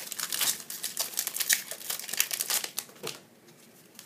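Foil wrapper of a trading card pack crinkling in quick rustles as it is handled and opened, dying away about three seconds in.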